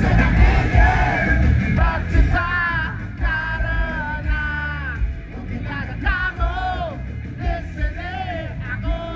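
Live rock band playing through a loud concert PA, with a heavy bass line and a male voice singing the melody.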